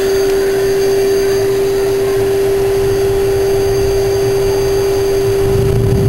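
1000-watt vacuum cleaner running as a blower, forcing air into a steel-drum garden-waste furnace, with a steady high motor whine. Near the end a low rumble builds as the fire under forced draught flares up.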